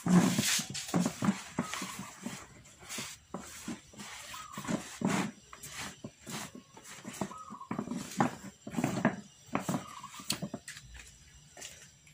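A dog making short, irregular vocal sounds, some with a rising and falling pitch; the loudest comes just at the start.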